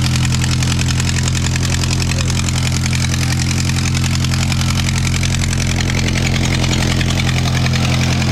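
Ford 8N tractor's four-cylinder flathead gasoline engine running steadily at an even speed, with fast, regular firing pulses. It has a leaking exhaust, with the pipe about to fall off.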